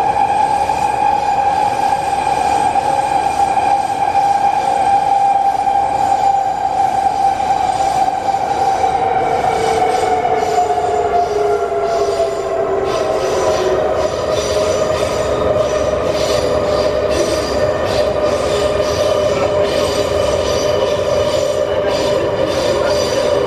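Wagonmash 81-series metro train heard from inside the car while running: a steady rumble under a whine of several tones. The whine glides down in pitch about halfway through, then holds steady.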